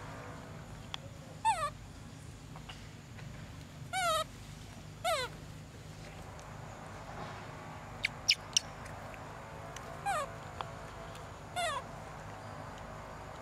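A young monkey giving short, high squealing calls, each falling in pitch, five times with gaps of one to five seconds. Three sharp clicks come in quick succession midway through.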